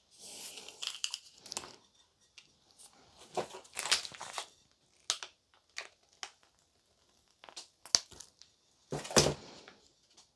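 Hands handling small plastic toy decorations and crumbly biscuit 'dirt': intermittent rustling, crinkling and crunching with scattered sharp clicks and taps, the loudest two knocks about eight and nine seconds in.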